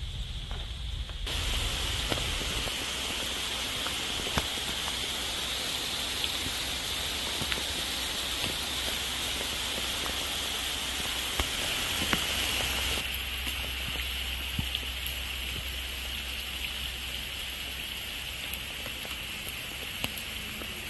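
Heavy rain in a mountain downpour, falling steadily with many separate drops tapping close by. It is muffled for about the first second, then opens out.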